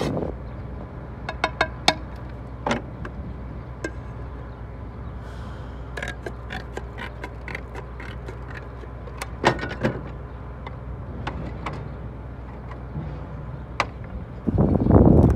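Natural slates clinking and tapping as round-cut slates are handled and fitted onto a chimney, a scatter of sharp clicks, some with a short ring. A loud rushing noise comes in near the end.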